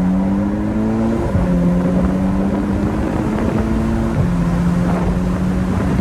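Tuned Mk6 Golf R's turbocharged 2.0-litre four-cylinder under acceleration: the engine note rises in pitch, drops at a gear change about a second in, then holds a steady pitch with another brief break about four seconds in. It runs on freshly fitted spark plugs and coil packs that cured a misfire.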